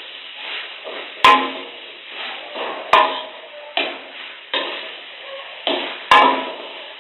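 Metal spatula scraping and clanking against an aluminium wok while stir-frying, an irregular run of strokes with three sharp ringing clanks, about 1.3, 3 and 6 seconds in.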